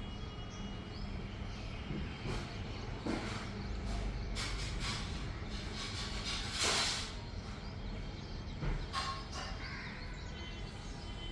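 Outdoor city background: a steady low traffic rumble, with faint bird calls and a few short noisy rushes, the loudest about two-thirds of the way through.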